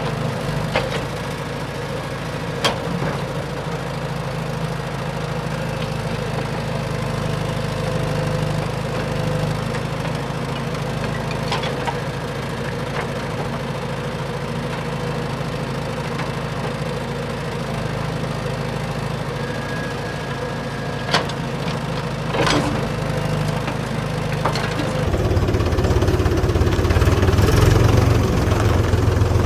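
Steady engine-like motor drone of a toy backhoe loader, with a few sharp plastic clicks. The low hum gets louder about 25 seconds in.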